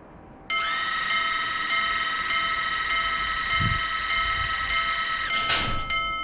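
Animated-cartoon train sound effects: a steady, high tone with several pitches starts suddenly about half a second in and holds for about five seconds, with a fainter on-off pulse beneath it. It ends in a brief whoosh near the end.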